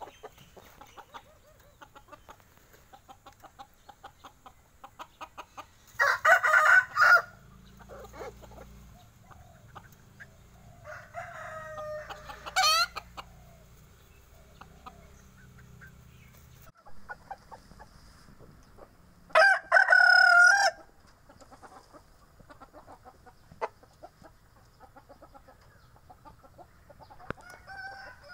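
A bantam rooster crows twice, short crows about thirteen seconds apart, with a wavering call between them and soft clucking throughout.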